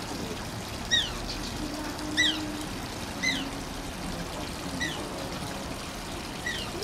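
Asian small-clawed otter giving short, high squeaks that fall in pitch, five of them about a second or so apart, over a steady trickle of running water.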